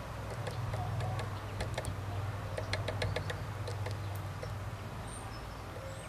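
Blue tit pecking at seed on a wooden feeder tray: a quick run of sharp taps, densest in the middle, over a low steady hum.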